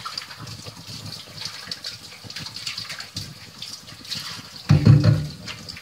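Water running and splashing, with a loud low thump about five seconds in.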